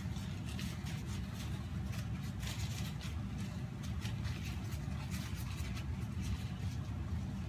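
Paper towel rustling and crinkling in irregular bursts as a raw quail is patted and rubbed dry, over a steady low hum.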